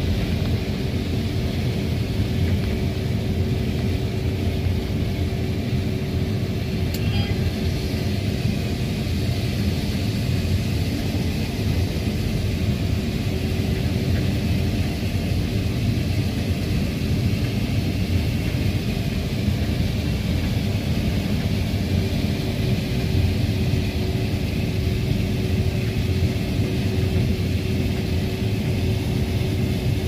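Combine harvester running steadily while its unloading auger pours shelled corn into a grain cart: a constant heavy rumble with a steady hum over it.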